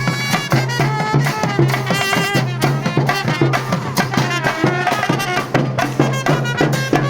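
Traditional music: rapid drumming with a piping melody over a steady low drone.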